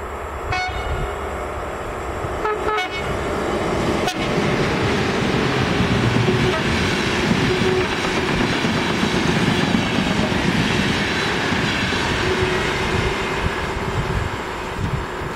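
Train horn sounds twice in the first three seconds, a short toot and then a slightly longer one. A passenger train hauled by an electric locomotive then passes close by with a steady rumble of wheels on rail. The sound is loudest about halfway through and slowly fades as the train draws away.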